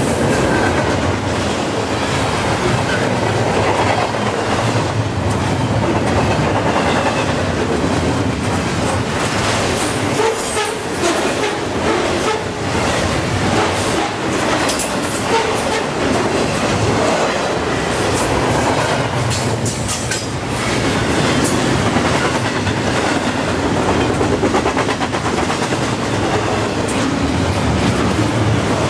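Double-stack container well cars of a long freight train passing close by at speed: steel wheels rumbling steadily on the rails with a rapid clickety-clack over the rail joints. A faint high wheel squeal rides over it in the first half.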